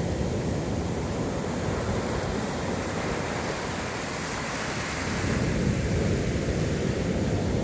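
Sea surf: waves rolling and washing on the shore, a steady low rumble with a swell of hissing wash in the middle and the rumble building again near the end.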